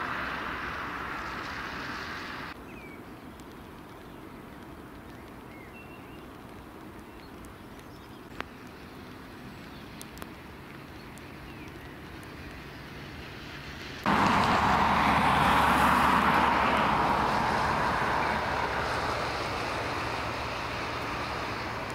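Outdoor airport noise in stormy wind, a steady rushing roar with no clear engine whine. It drops suddenly after about two seconds and stays low, with a single sharp click, then jumps back loud about two-thirds of the way in.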